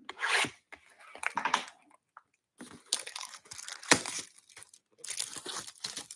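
Clear plastic shrink wrap being torn open and peeled off a sealed trading-card box, crinkling and tearing in irregular bursts.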